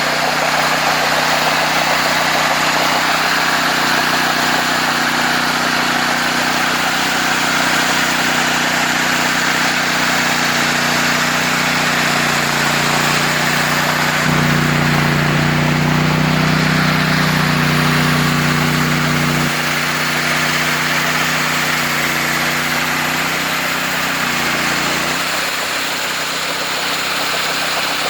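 Homemade sawmill running, its engine's steady note under a loud rushing noise. The engine note grows stronger for about five seconds midway, then shifts again near the end.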